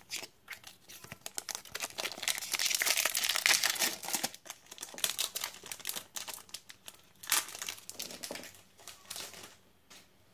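Foil Pokémon booster pack wrapper being crinkled and torn open. A dense crackle is loudest about two to four seconds in, then scattered crinkles die down near the end.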